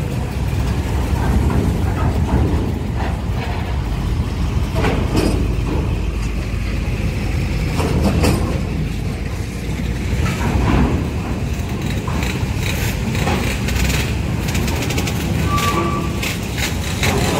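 Trucks driving off a ferry over its steel ramp and grated deck: a steady low engine rumble, broken several times by loud metallic clanks as the wheels cross the ramp plates.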